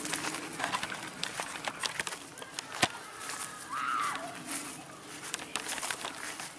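Footsteps and rustling through grass while walking a dog on a leash, with irregular clicks and one sharper click about three seconds in. A short whistled call is heard about four seconds in.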